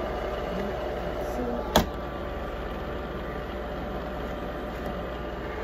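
Carel soft bonnet hair dryer running steadily on its high setting, its blower pushing air through the hose into the bonnet. A single sharp click stands out about two seconds in.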